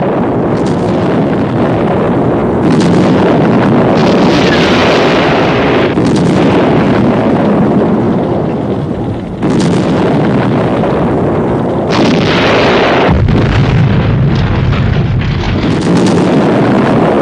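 A run of loud explosions, one blast after another, with a new blast breaking in every two or three seconds and a deeper low rumble in the later part: the explosion effects of a film scene.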